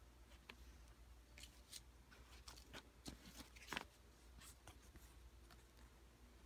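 Faint rustling and crinkling of old Mexican paper banknotes being handled and swapped: a scatter of short crackles, the loudest a little past halfway.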